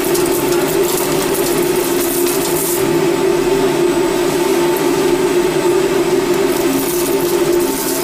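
Curtain frying machine running: a steady mechanical hum with a couple of held tones, under a high hiss that drops away about three seconds in and returns near the end.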